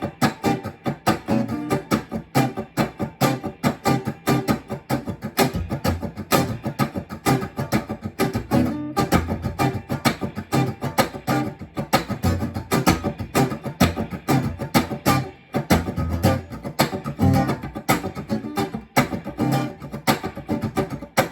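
Guitar strummed in a steady, even rhythm of eighth notes.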